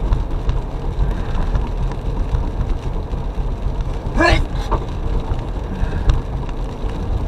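A man sneezes once, sharply, about four seconds in, over the steady low rumble of the car's engine and tyres inside the cabin.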